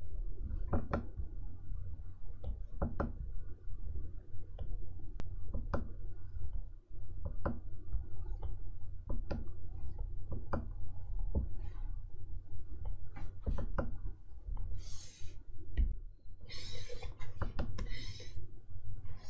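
Stylus nib tapping and clicking on the screen of an XP-Pen Artist 15.6 Pro pen display, irregular taps about once a second, over a steady low hum. Near the end come a few short scratchy strokes of the pen dragging across the screen.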